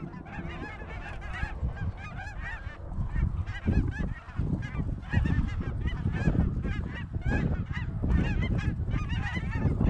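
A large flock of small Canada geese (cackling and lesser Canada geese) calling in flight, many short high honks overlapping continuously, over a steady low rumble.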